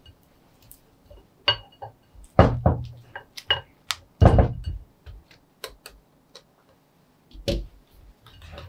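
Wire whisk stirring thick cream-cheese batter in a glass mixing bowl, clinking and tapping irregularly against the glass, with a few heavier knocks.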